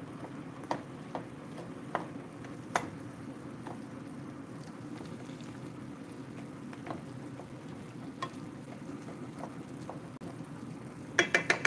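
Chicken pieces simmering and sizzling steadily in their juices in a metal wok, with a wooden spatula stirring and knocking against the pan every second or so. A quick run of louder clatters comes near the end.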